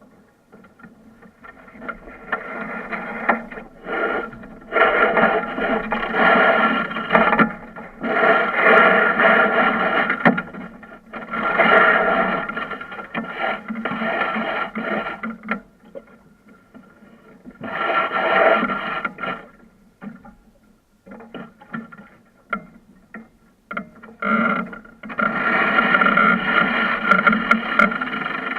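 Rushing noise of wind and water on a sailing yacht under way, swelling into loud surges lasting a few seconds each and falling away between them.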